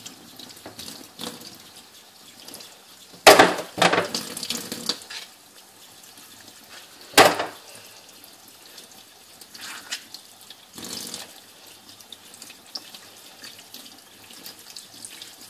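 Kitchen tap running into a stainless steel sink while raw cuttlefish are rinsed and cleaned under the stream. A few sharp, louder splashing noises come about three to four seconds in and again about seven seconds in.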